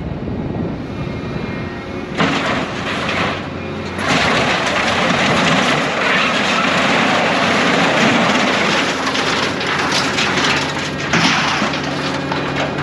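Scrap material handler's diesel engine and hydraulics running, heard from inside the cab, growing louder under load from about four seconds in. Scrap metal clanks and scrapes as the grapple digs into and lifts a bundle of corrugated sheet.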